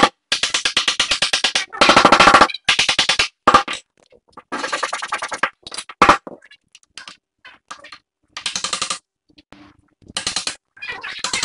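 Bursts of rapid, evenly spaced taps: a hammer driving a thin wooden strip into a crack in a solid-wood tabletop, the strokes coming in quick runs that stop and start abruptly.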